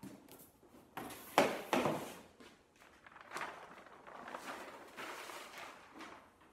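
Heavy brown kraft paper and stiff backing sheets being lifted and peeled back off the bed of a printing press to uncover a freshly pressed print. A sharp knock comes about a second and a half in, where a sheet is dropped or set down, followed by rustling and crinkling of the paper.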